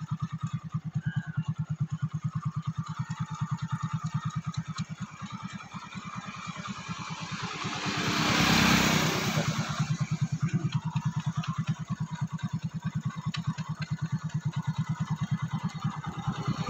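Motorcycle engine running steadily with an even, rapid putter of firing pulses. About eight seconds in, a loud rush of noise swells up and fades within a couple of seconds.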